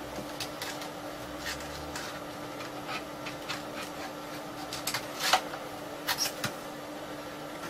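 Scattered small plastic clicks and clacks of a floppy disk being handled and pushed into a bare floppy drive, the loudest about five seconds in. Under them runs the steady hum of the running computer's fan.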